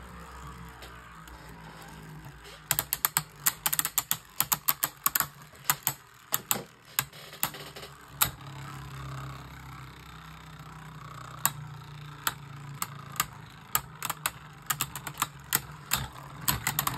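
Two Beyblade Burst spinning tops whirring in a plastic battle stadium, with rapid plastic clacks as they collide. The hits come thick and fast from about three seconds in, then thin to scattered knocks.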